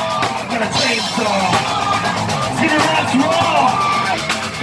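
A live rock band playing loud, with electric guitar and a drum kit keeping a steady beat, between sung lines.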